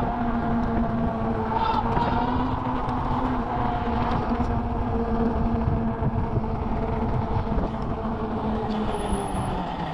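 Electric bike's hub motor humming at a steady pitch under way, with wind rumble on the microphone; the hum sags slightly near the end as the bike slows.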